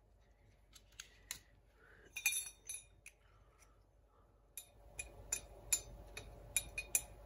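Light clicks and clinks of copper pipe connectors and pipe being handled and knocked together: a few separate ticks, then a quick cluster. Past the middle there are more clicks over a faint steady hum.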